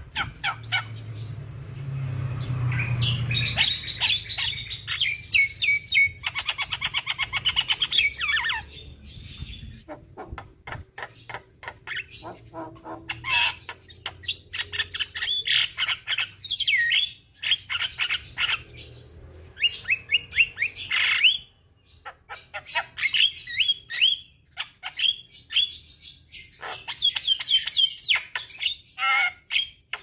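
Javan myna singing a long, varied chattering song of quick whistled notes, sharp clicks and squawks, with a fast rattling trill about six seconds in and a few brief pauses.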